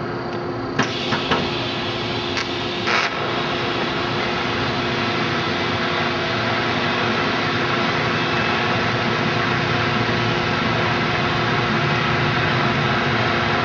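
Steady shop machine noise with a constant hum. A few sharp clicks come about a second in, and a short hiss follows a couple of seconds later.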